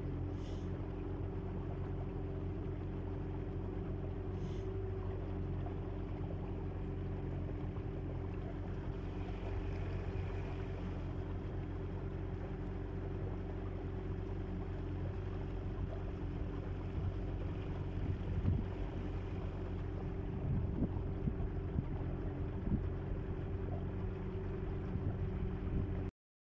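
A small boat's motor running steadily at an even speed as the boat travels along, with the hiss of water and wind under it. It cuts off suddenly just before the end.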